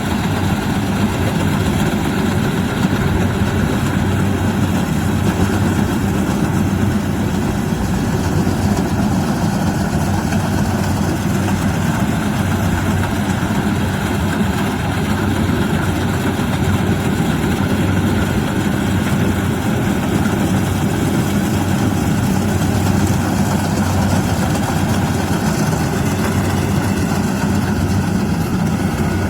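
Kubota DC-70 Plus rice combine harvester's diesel engine running steadily, a constant low drone.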